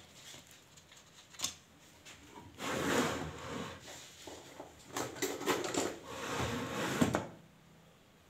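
Rummaging among small parts below a wooden workbench to fetch a ceiling-fan capacitor: one knock about a second and a half in, then scraping and rattling for about four and a half seconds that stops near the end.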